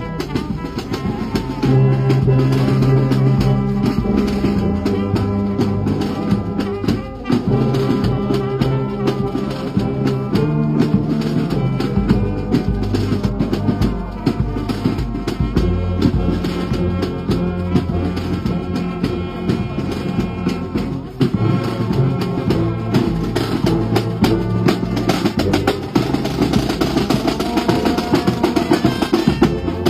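Brass band playing: low brass holding and changing sustained notes over a steady drum beat.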